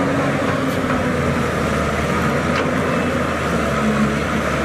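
Diesel engine of a Caterpillar tracked hydraulic excavator running steadily under working load, a constant low drone.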